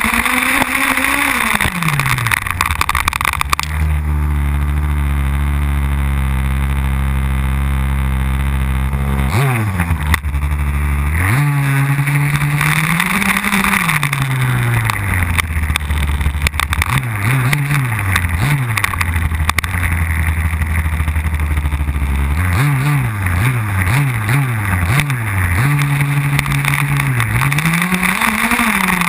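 HPI Baja RC buggy's engine heard from on board, revving up and down repeatedly as the throttle is worked, with two longer stretches of steady running and several quick throttle blips in a row near the middle and again later.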